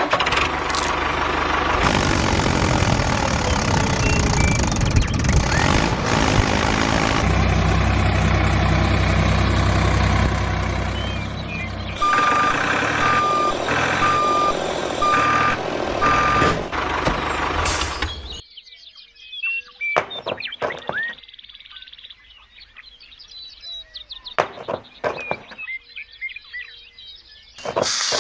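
Heavy vehicle engine noise with a deep rumble, then a reversing alarm beeping five times at about one beep a second. After that come scattered light clicks and scrapes.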